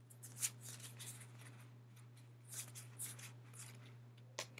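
Tarot cards sliding and rustling against each other as they are handled one after another: a faint run of soft brushing sounds, with a sharp click near the end.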